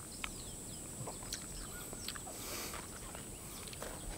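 Faint outdoor ambience: a steady high-pitched buzz with a scattering of small clicks and ticks.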